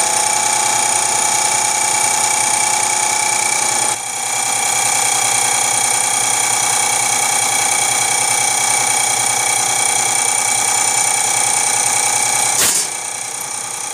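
Diesel fuel injection pump test bench running with a pump under test that feeds fuel into graduated measuring cylinders: a steady machine whine made of several steady tones. The level dips briefly about four seconds in. Near the end a sharp click is followed by a quieter run.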